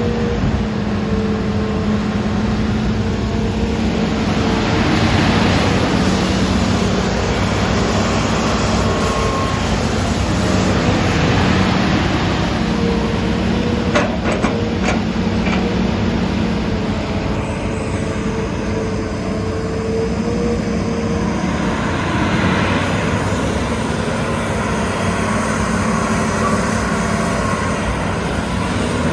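Hitachi Zaxis excavator's diesel engine running at high throttle with a steady, buzzing drone that swells and eases several times. A few sharp clicks come about halfway through.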